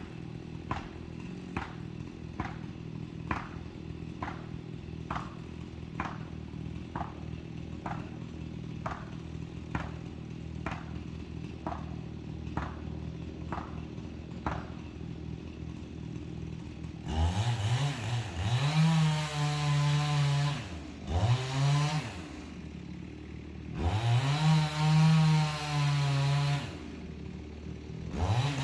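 Chainsaw idling with sharp, evenly spaced knocks about twice a second for roughly fifteen seconds, then the saw revved up to full throttle in several bursts of a few seconds each.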